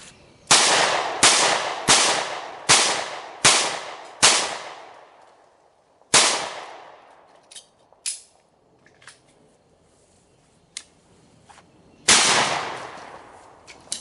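A semi-automatic handgun firing seven shots, six in quick succession about 0.7 s apart and a seventh after a short pause, each trailing off in an echo. After a few seconds of quiet, one more loud shot follows, from a shotgun.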